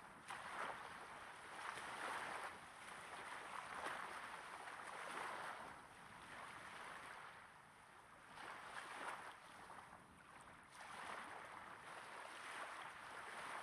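Small waves gently breaking and washing onto a sand beach, heard close up. Each soft wash swells and fades every two to three seconds.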